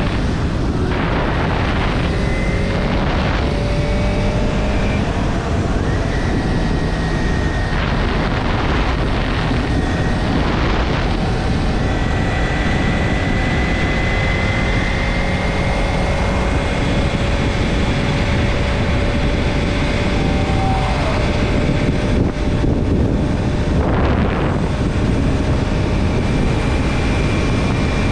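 Motorcycle running at steady road speed, heard from the bike: wind rushing over the camera microphone with the engine's faint whine underneath, its pitch creeping slowly up and down with speed. A few brief swells of rushing noise come and go.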